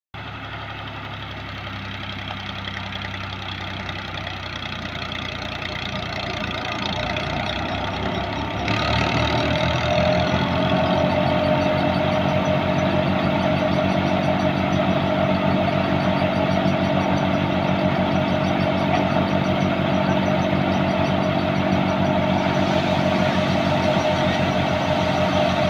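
New Holland 480 tractor's diesel engine running, turning a wheat thresher through its PTO shaft. The sound builds over the first several seconds; about a third of the way in it jumps louder and a steady whine from the thresher at speed rides over the engine's beat.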